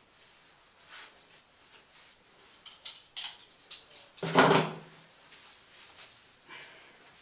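Household handling noises: scattered light clicks and rustles, with a louder clunk about four seconds in.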